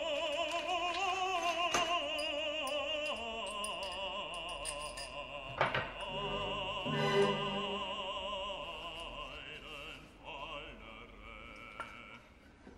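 Background music: operatic singing, a voice holding long notes with a wide vibrato. Two brief knocks, about two and six seconds in, as wooden trestle boards are handled.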